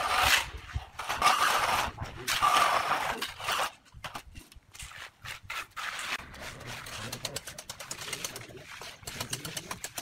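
Wet concrete being screeded by hand: a straightedge board scraped through the soupy slurry in three swishes about a second apart, followed by quieter, quicker small scrapes.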